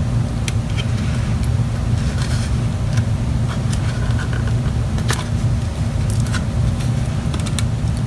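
Steady low background rumble, with scattered light clicks and taps from hands working the old cells out of a PowerBook 1400 battery pack's plastic case.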